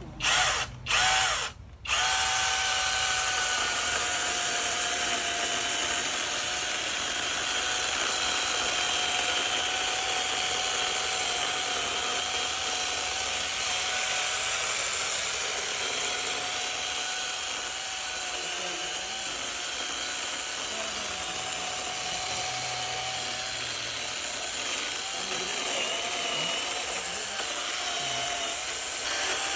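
Cordless battery-powered 12-inch chainsaw's electric motor running: two short blips near the start, then a steady whine that runs on without a break.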